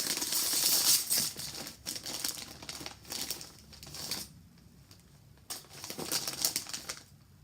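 Snack bag of chickpea chips crinkling as it is opened and handled, with the chips rattling inside. The rustling is heavy for about the first four seconds, dies down, then comes back in a short burst near the end.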